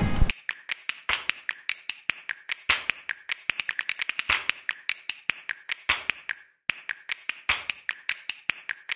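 A fast, irregular run of sharp clicks and taps, several a second, some ringing briefly, with a short break a little past six seconds in.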